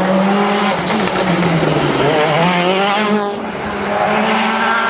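Citroën DS3 WRC rally car's 1.6-litre turbocharged four-cylinder engine working hard, its pitch rising and falling as the driver goes on and off the throttle through a corner, with a warbling squeal from the tyres through the middle.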